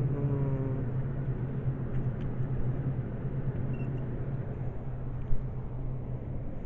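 Steady low hum with a rumbling background noise, and one short knock about five seconds in.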